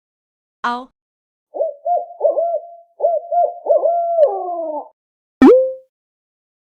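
Owl hooting: a run of short, wavering hoots lasting about three seconds. Near the end comes a brief, loud sound with a sharp start.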